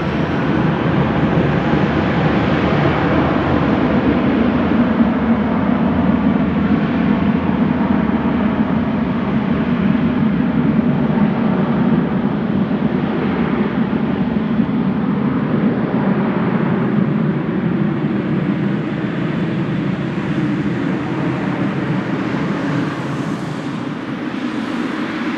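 Jet airliner engines at takeoff power: a loud, steady, deep roar that eases slightly near the end.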